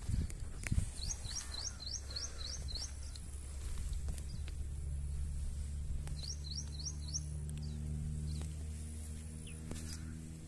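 A bird calling with a quick run of short rising high notes, about three a second, in two bouts: the first about a second in, the second past the middle. Under it runs a steady low rumble.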